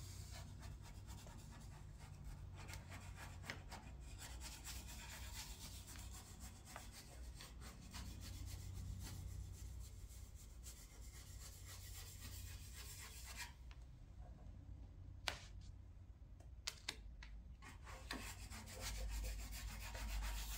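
Hands rubbing a vinyl decal's transfer tape down onto a truck's bed side, smoothing it flat so no air is trapped: a faint, continuous scratchy rubbing, with a few sharp clicks about three quarters of the way through.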